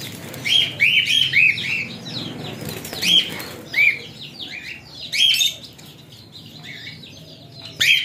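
Caged birds in a shop chirping: short, arched calls, several birds at once, some in quick runs, with fluttering wings as a cockatiel is caught by hand.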